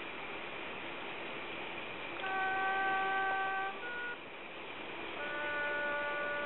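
Long, steady held notes from a brass instrument. A higher note sounds about two seconds in and lasts over a second, a brief note follows, then a lower note starts about five seconds in and carries on.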